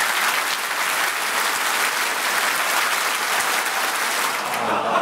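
A large audience clapping hard and continuously, a dense wash of many hands at once. The clapping is the input to a clap-controlled game, where louder applause makes the bird fly higher.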